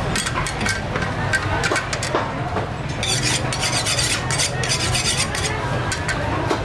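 Quick, repeated scraping and clinking of kitchen utensils against a pot or bowl, thickest in the middle, over a steady low hum of background noise.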